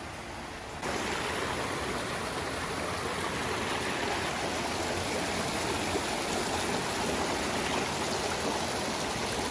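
Small rocky forest stream rushing and splashing over stones in little cascades, a steady water noise that steps up in loudness about a second in.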